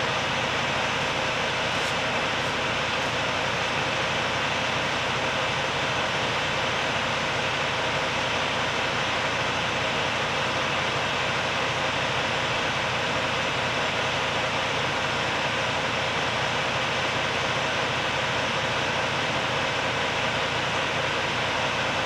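Steady drone of running machinery, even and unchanging, with faint steady tones through a broad hiss.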